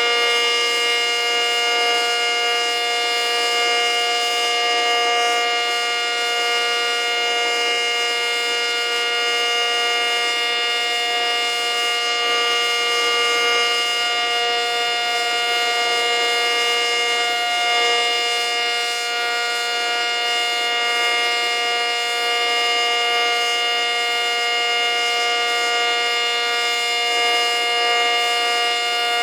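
ACA Cyclone 125 outdoor warning siren sounding, held at one steady pitch with a rich stack of overtones, loud and without rising or falling.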